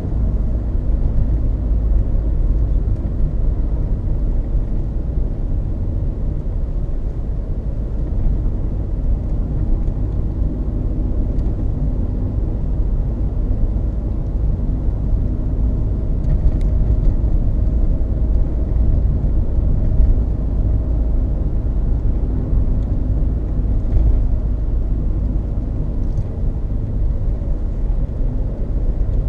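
Loud tyre road noise heard inside the cabin of a moving Peugeot 306 2.0 HDi: a steady low rumble from Dunlop Sport BluResponse tyres, with a few faint ticks. The owner wonders whether the noise is down to tread wear, since the bearings, suspension, balancing and alignment have been checked.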